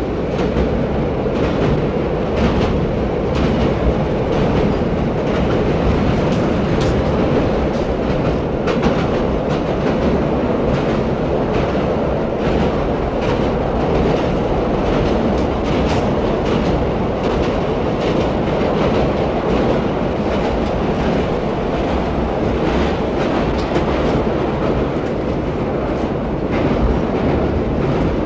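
Subway train running along the track: a steady rumble with the wheels clacking over rail joints at irregular intervals.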